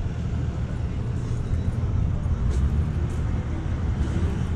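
Steady low rumble of motor vehicle engines running nearby, with light road traffic noise.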